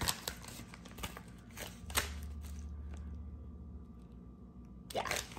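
Light handling noises of paper packaging: a few soft clicks and taps with faint crinkling, and a low hum for a couple of seconds in the middle.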